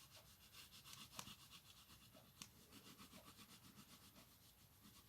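Near silence, with faint rubbing of a liquid glue applicator tip drawn along cardstock and a couple of light ticks.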